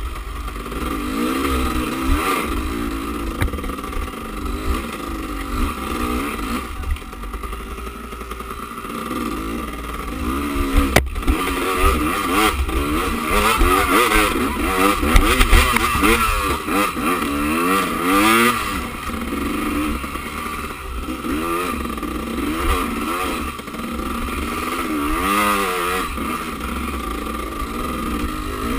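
Enduro dirt bike's engine being ridden over a rough trail, revving up and down again and again with the throttle, over a constant low rumble. There is one sharp knock about eleven seconds in.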